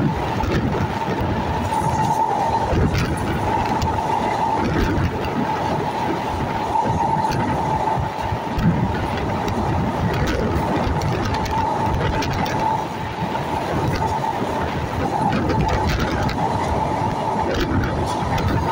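Train running, heard from on board by the window: a steady rumble of wheels on the rails with a constant high whine over it.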